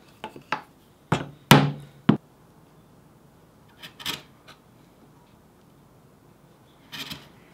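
Soft-faced mallet tapping an oak marking gauge: five sharp wooden knocks in the first two seconds, the fourth the loudest, then two lighter knocks about four seconds in and a short clatter near the end.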